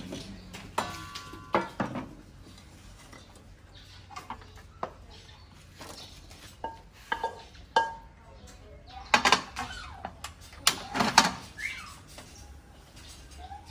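A wooden spatula scrapes and knocks stir-fried food out of a wok into a stainless steel pot, with scattered clinks and knocks of metal cookware. One clink about a second in rings briefly, and the busiest, loudest scraping and knocking comes about two-thirds of the way through.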